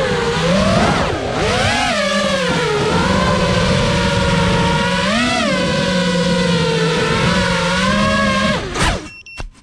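FPV drone's brushless motors and propellers whining loudly, the pitch rising and falling with throttle. Near the end the whine sweeps quickly down and cuts off, with a few sharp clicks.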